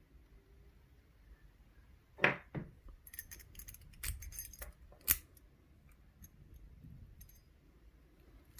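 Small metal clicks and light jingling of a key and padlock parts being handled, with a sharper click about five seconds in.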